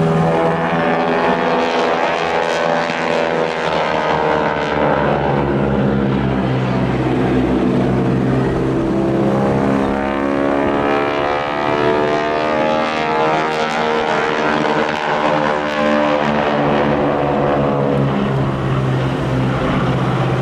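Boeing Stearman biplanes' radial engines and propellers droning steadily as they fly past, their pitch slowly sweeping as they pass.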